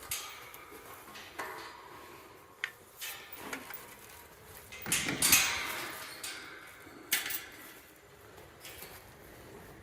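Metal being handled: scattered clanks and knocks, a few light ones in the first four seconds and the loudest pair about five seconds in, then one more about seven seconds in.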